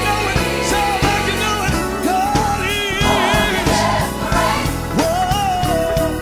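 Gospel music: voices singing a melody with held and gliding notes over steady instrumental accompaniment.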